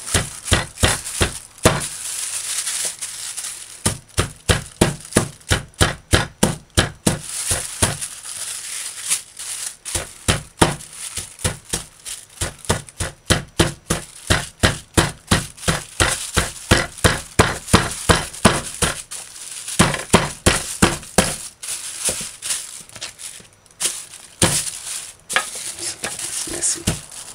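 A hammer pounding raw conch meat inside a plastic bag on a countertop, tenderizing it: repeated blows at about two or three a second, with a few short breaks, and the bag crinkling.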